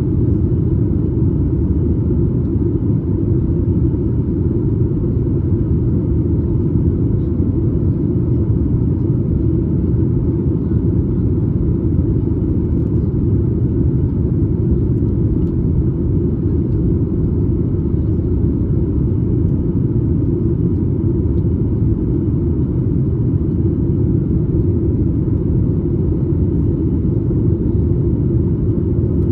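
Steady cabin roar of a Boeing 737 MAX 8 in flight: engine and airflow noise from its CFM LEAP-1B turbofans, heard from a window seat just behind the wing, deep and unchanging.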